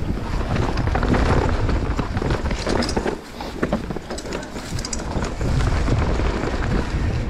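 Mountain bike ridden fast down a dirt trail: wind buffeting the microphone over the tyres rolling on dirt, with scattered clicks and knocks of the bike rattling over bumps.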